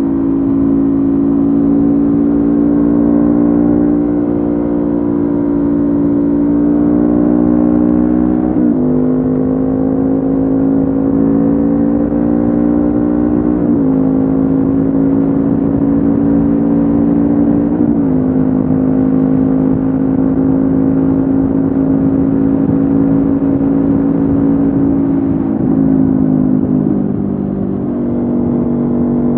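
Honda CB500F's parallel-twin engine running through a Mivv GP Pro slip-on exhaust while riding. The exhaust note holds steady and climbs slowly in pitch, with four brief sharp drops in pitch along the way.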